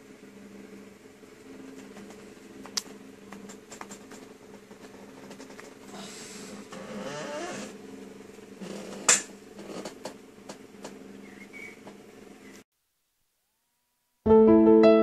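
Faint steady hum of held low tones with scattered small clicks and rustling, one sharper click about nine seconds in. The sound cuts out completely, and piano music starts near the end.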